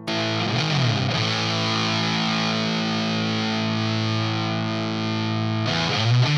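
Electric guitar played through a Sola Sound Mk IV Tone Bender 'Esprit Blanc' fuzz pedal: a thick, saturated fuzz chord struck suddenly with a quick dip in pitch just after, then held and sustaining for several seconds before new notes come in near the end.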